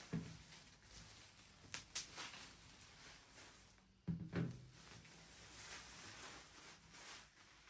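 A few soft knocks and clatters from objects being handled, the loudest pair about four seconds in, over faint hiss.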